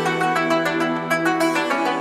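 Background music of quickly plucked strings over a held bass note.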